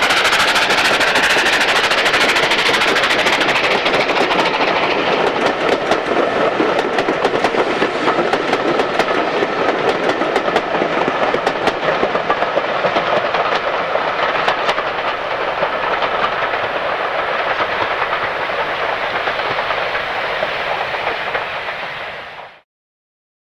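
Unrebuilt Bulleid Battle of Britain class three-cylinder Pacific No. 34072 working a passenger train past and away, with steady exhaust and the coaches' wheels clicking over the rail joints. The sound grows duller as the train recedes and cuts off suddenly near the end.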